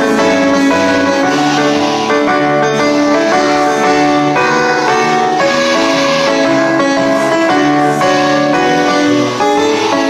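Instrumental music, a melody of held notes over a moving bass line.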